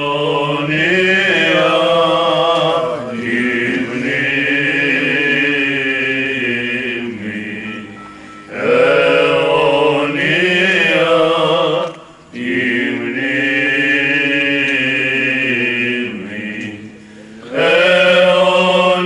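Greek Orthodox clergy singing Byzantine chant from the memorial service for the dead. The male voices draw out long, melismatic held phrases, broken by short breaths between them.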